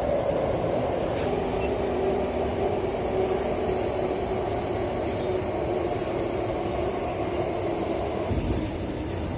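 Singapore MRT train running, heard from inside the passenger car: a steady rumble with a faint motor whine that steps down in pitch about a second in, the noise easing slightly toward the end.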